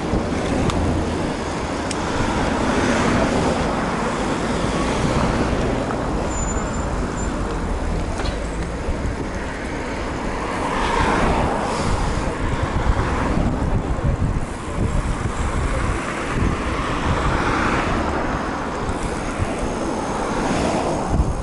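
Road traffic: cars passing by, swelling and fading several times over a steady low rumble.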